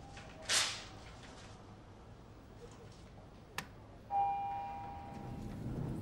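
Lift arrival chime: a single ding about four seconds in that rings and fades over about a second. Earlier comes a short swish about half a second in and a faint click.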